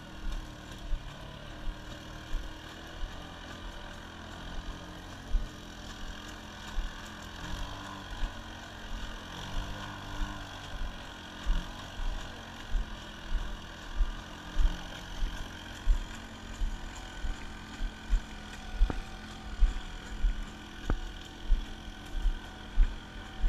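Boston Dynamics LS3 robotic mule's onboard engine running with a steady drone as the robot walks, with regular low thumps about one and a half times a second at walking pace.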